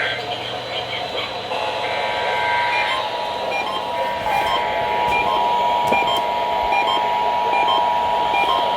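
Emergency Alert System tones: a short burst of SAME header data squawk, then the two-tone EAS attention signal held steady from about a second and a half in, with fainter short beeps repeating evenly over it.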